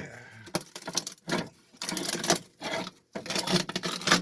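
A power tool cutting through the fibreglass that glasses an old fuel tank into a sailboat's bilge, running in short bursts of about a second with brief pauses between them.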